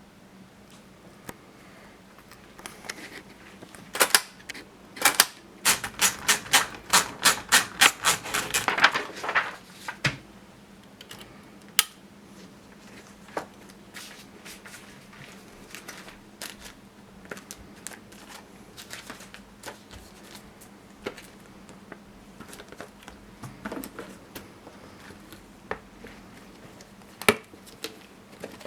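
Princess typewriter typing: a quick run of sharp keystrokes, about three a second, from about five to nine seconds in, then scattered quieter clicks and taps of the mechanism.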